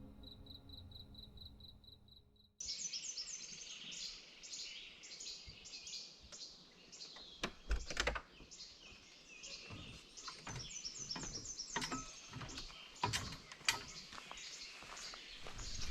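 A cricket chirps in a steady, even pulse over soft low tones. About two and a half seconds in, this cuts off suddenly and gives way to birds chirping busily, with a few scattered clicks and knocks.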